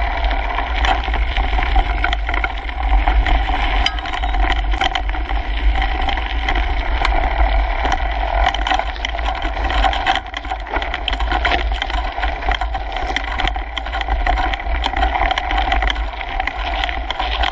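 Mountain bike rolling along a gravel woodland trail, heard from a handlebar-mounted GoPro: steady tyre and wind rush with a constant low rumble, and frequent short clicks and rattles from the bike and mount over the rough surface.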